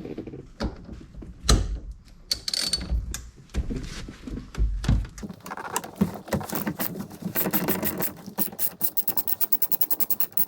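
Socket wrench on an extension loosening the 19 mm steering-wheel nut: scattered knocks and clunks as the tool is fitted and worked, then, from about seven seconds in, a fast, even run of ratchet clicks as the nut is backed off.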